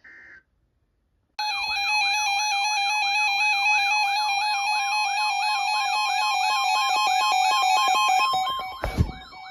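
A short electronic data burst, then after about a second of silence a loud electronic alert alarm warbling up and down about three times a second over steady stepped tones. The alarm weakens near the end, and a sharp click comes shortly before the end.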